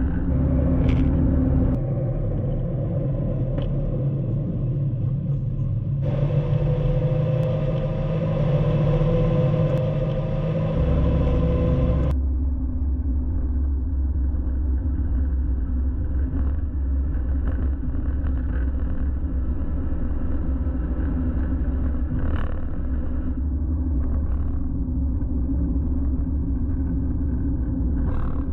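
Kei truck on the move: a steady low engine and road rumble, with a slowly rising engine tone for a few seconds in the middle. The sound changes abruptly about six and twelve seconds in.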